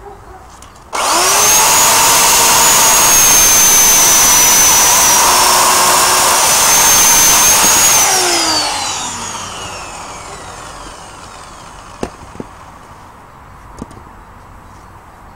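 Chainsaw starting up suddenly about a second in and running at full speed while cutting through a log, its high whine dipping slightly under the cut. The whine then falls steadily in pitch and fades over a few seconds as the saw winds down, followed by a few short knocks near the end.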